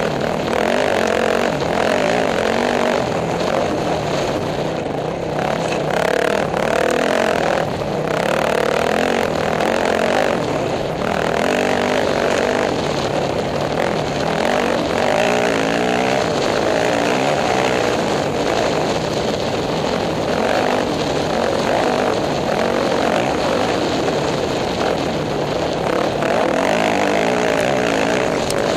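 Off-road racing motorcycle engine heard from a helmet camera, running hard and rising and falling in pitch as the rider works the throttle, under a steady rush of wind noise.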